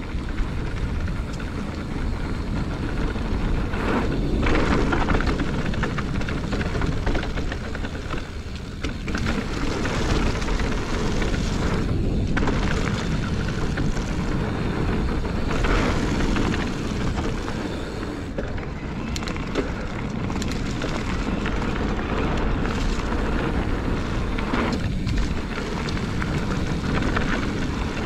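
Wind rushing over the microphone of a camera on a mountain bike being ridden, with steady low rumble from the bike rolling over the ground.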